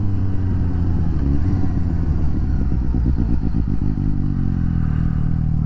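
Suzuki GSX-S750 motorcycle's inline-four engine running steadily while under way, its pitch slowly sinking, with low wind rush on the microphone.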